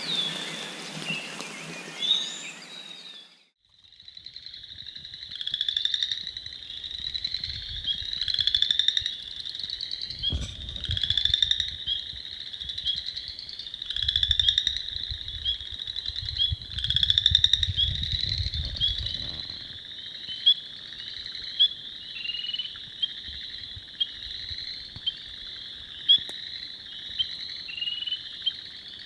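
Night chorus of spring peepers in a marsh: many short, rising peeps overlapping continuously. The first few seconds hold a different, hissy outdoor ambience that cuts off suddenly before the chorus begins.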